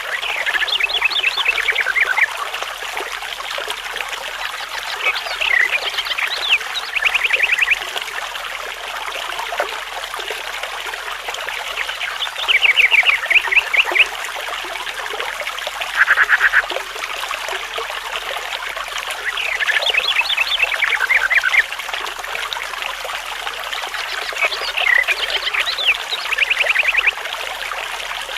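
A bird singing short phrases of rapid, repeated high notes, a phrase every few seconds, over the steady babble of running water.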